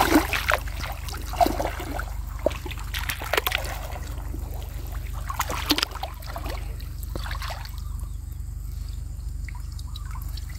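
Shallow lake water sloshing and splashing around a person's legs as he wades in, with several sharp splashes in the first half. It grows quieter near the end, with water trickling as a net fish trap is drawn up out of the water.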